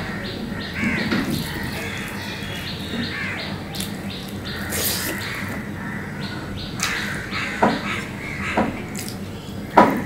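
Close-up eating sounds of rice and fried fish being chewed, with three sharp wet lip smacks in the second half, the loudest near the end. Short bird chirps in the background about one and three seconds in.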